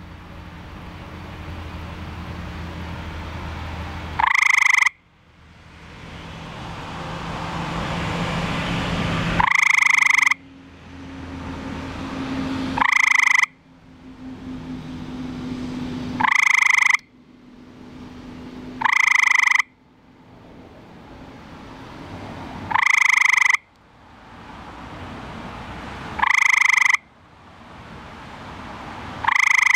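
Male eastern gray treefrog (Hyla versicolor) giving its mating call: short musical trills, eight in all, each under a second and repeated every three to four seconds.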